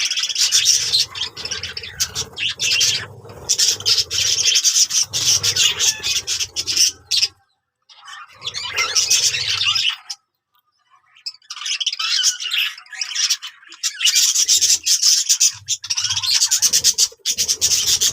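Budgerigars chattering and warbling in a dense run of fast, high chirps. The sound cuts out abruptly twice, the second time for over a second.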